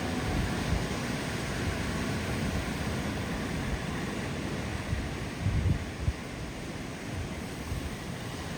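Ocean surf washing in steadily, with wind buffeting the microphone in gusts, strongest about five and a half seconds in.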